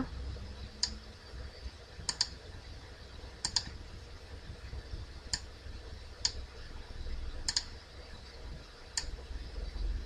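Computer mouse clicks, about seven sharp clicks spaced irregularly a second or so apart, some in quick pairs, as anchor points are placed one by one with the pen tool, over a faint steady low hum.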